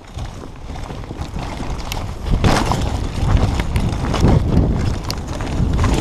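Mountain bike riding fast down a rough dirt trail: a low rumble of wind buffeting the mic and knobbly tyres on dirt, with irregular knocks and rattles from the bike jolting over bumps. It builds as speed picks up and is loudest from about two seconds in.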